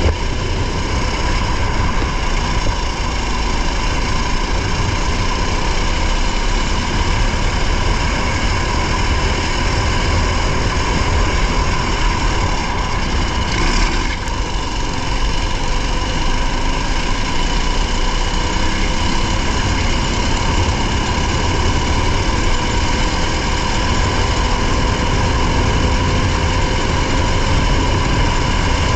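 Racing vehicle's engine heard from on board while driving at speed: a continuous loud drone, its pitch gliding slowly up and down with the throttle, over heavy low rumble, with a brief dip about halfway through.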